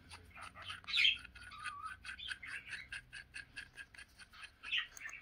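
A small bird chirping in quick repeated short high notes, about four or five a second, with a short whistled note about two seconds in.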